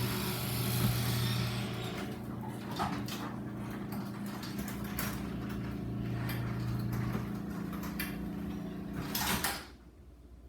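LiftMaster belt-drive garage door opener running and moving the door: a steady motor hum that stops near the end.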